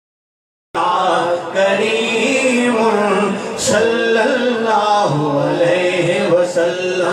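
A man reciting a naat in a melodic chanting voice, unaccompanied. The sound is cut to dead silence for the first moment, and the chanting comes in under a second in.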